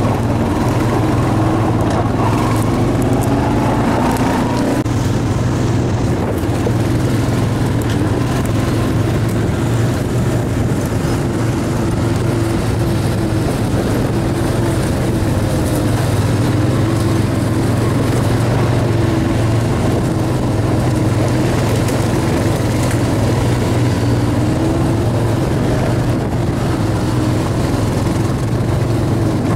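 Four-wheeler ATV engine running steadily, heard from on board while riding a dirt trail. Its pitch rises about two to four seconds in as it speeds up, then holds with small rises and falls.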